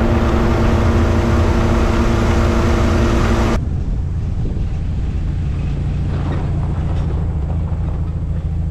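Austin-Healey 100 roadster driving at road speed: a steady engine and exhaust drone under a heavy rush of wind noise. About three and a half seconds in, it cuts to a quieter, duller sound of the engine running slowly as the car turns off and pulls up.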